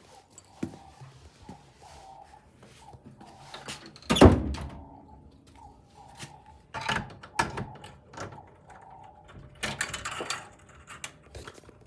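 A door shutting with a loud thud about four seconds in, followed by lighter knocks and rattles twice more.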